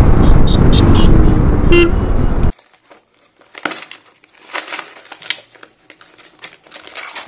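Motorcycle riding noise with heavy wind on a helmet-mounted phone microphone and a short horn toot, cutting off abruptly about two and a half seconds in. After that, hands tear and open a cardboard parcel, with intermittent rustling and tearing of cardboard.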